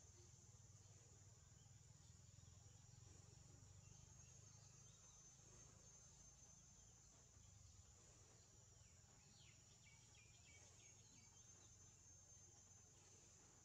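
Near silence: faint outdoor ambience with a steady high insect drone, and a few faint short chirps about two-thirds of the way through.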